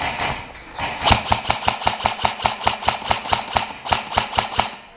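Airsoft electric rifle firing a long, rapid string of shots, about six a second, starting about a second in and stopping just before the end.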